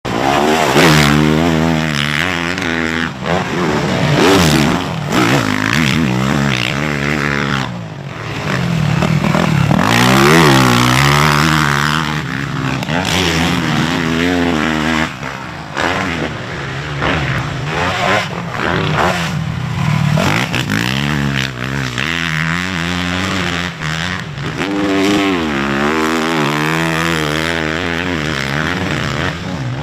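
Dirt bike engine at full throttle, its pitch climbing and falling again and again as the rider opens the throttle, shifts and chops it, with brief dips when the throttle is shut.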